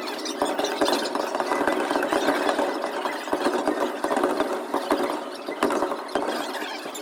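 Fireworks crackling: a dense, rapid stream of small pops and sparkle crackles, with a few louder cracks about a second in and again near the end.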